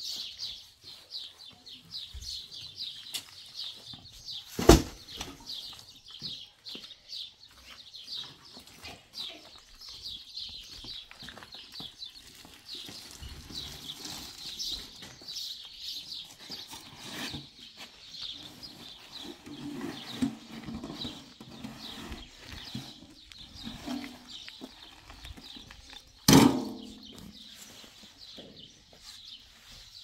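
Many small birds chirping in a dense, steady chorus of rapid high notes. Two sharp, loud knocks cut through it, one about five seconds in and one near the end.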